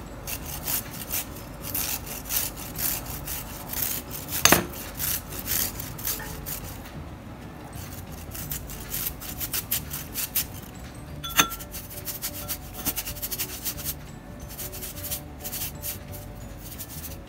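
Fresh peeled turmeric root being grated on a flat metal cheese grater, a steady run of quick scraping strokes. Two sharper clicks stand out, about four and about eleven seconds in.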